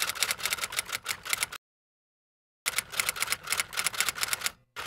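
Typewriter keys clacking in quick succession as a typing sound effect, about eight keystrokes a second. The typing stops dead for about a second partway through, then resumes.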